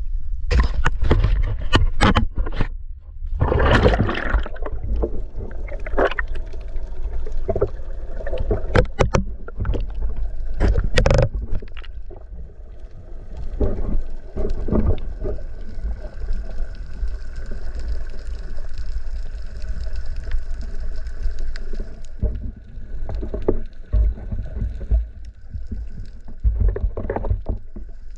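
Water sounds over a steady low rumble, with many irregular splashes and knocks, thickest in the first half and again near the end.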